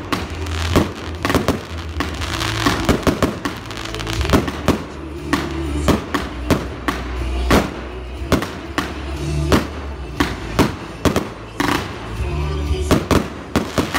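Fireworks display: aerial shells bursting one after another, many sharp bangs and crackles every fraction of a second, over background music.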